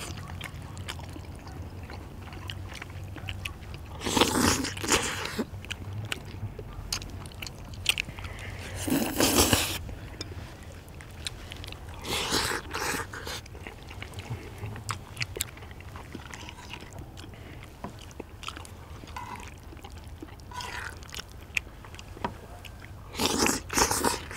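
People eating chewy rice cakes and noodles: chewing, with small clicks of chopsticks and bowls and metal tongs scraping the cast-iron cauldron-lid griddle. A few louder, second-long noisy bursts stand out, about four, nine and twelve seconds in and again near the end.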